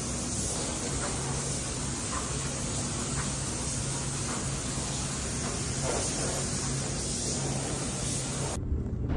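Air spray gun hissing steadily as it lays down a coat of epoxy sealer, with a steady low hum underneath. Near the end the hiss cuts off and music begins.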